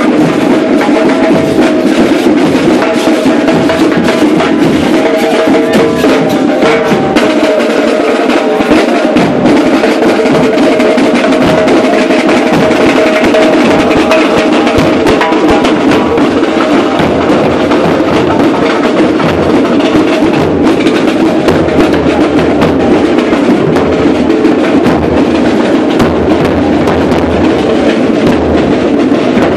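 A marching drum band playing a loud, continuous rhythm on snare drums and bass drums.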